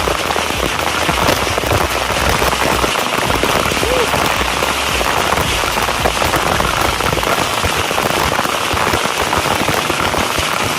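Waterfall cascade: a loud, steady rush of falling, splashing water.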